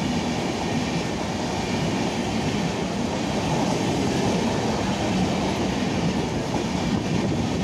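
LHB passenger coaches of an express train running past, with a steady, unbroken noise of wheels on rail.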